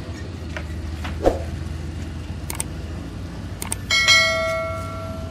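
Edited-in subscribe-button sound effect: a few short clicks, then about four seconds in a bright bell chime that rings out over about a second, over a steady low hum.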